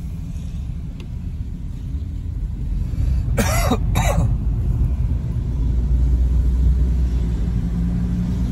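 Steady low road and engine noise inside a moving car, with two quick coughs about three and a half seconds in.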